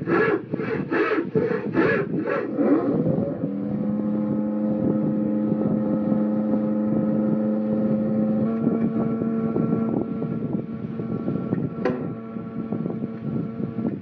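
Engine running with a steady droning chord of tones that steps to a new pitch about eight seconds in, after a few seconds of rhythmic pulsing at about three beats a second.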